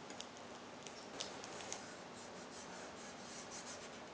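Paper transfer sheet being peeled off a vinyl decal on a metal saw blade: faint crackling of the paper, with a few small clicks in the first couple of seconds.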